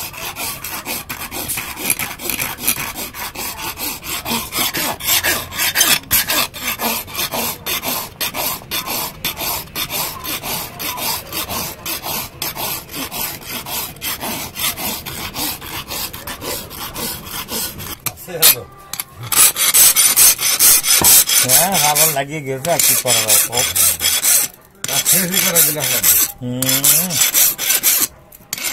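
Steel hand file rasping across a forged steel knife blade in quick, even back-and-forth strokes. About eighteen seconds in the strokes turn longer and louder, some with a wavering squeal.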